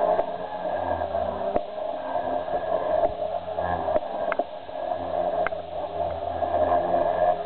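Protos 500 electric RC helicopter flying aerobatics: the main rotor and electric motor drone steadily and shift in pitch as it manoeuvres. The drone grows louder near the end as it comes closer, with a few sharp ticks along the way.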